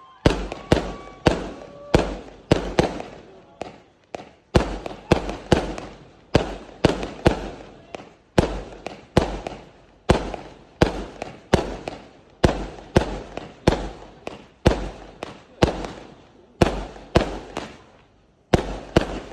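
Fireworks going off in a long, quick run of loud bangs, about two a second, each fading briefly after the crack, with a short pause near the end.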